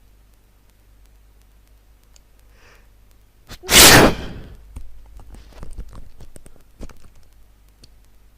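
A person sneezes once, loudly, about three and a half seconds in, followed by a few softer short noises.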